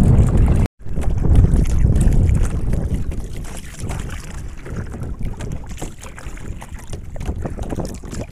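Wind rumbling on the microphone aboard a moving kayak on open river water, strongest just after a brief dropout near the start and then easing off.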